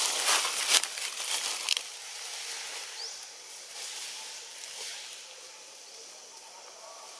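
A crackling, crunching rustle for about the first two seconds, then a soft outdoor hiss with a few faint, short high chirps.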